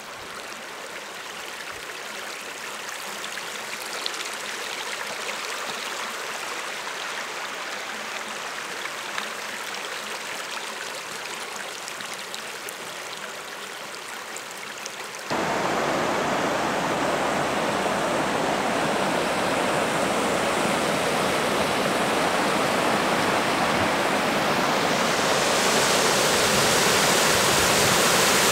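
Muddy floodwater rushing down a ravine running full in spate after torrential rain, a steady, even noise of water. About halfway through it becomes suddenly louder and deeper, and near the end it grows hissier, like close foaming rapids.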